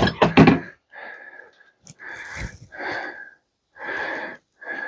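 A loud knock and clatter at the start as a scrap bin is opened, then about five short raspy sounds roughly a second apart, each with a thin whistling tone in it.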